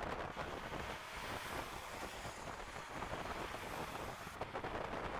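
Wind rushing and tyre roar of a car travelling at motorway speed, with no distinct engine note; the high hiss drops away about four seconds in.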